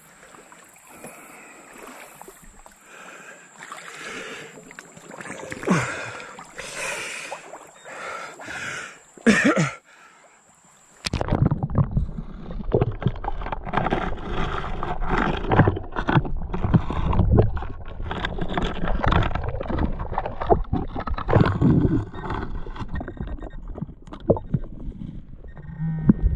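Water splashing and sloshing as someone wades through a shallow river. It comes in two passages: light, irregular splashes with a faint steady high tone until about eleven seconds in, then a sudden jump to heavier, denser sloshing.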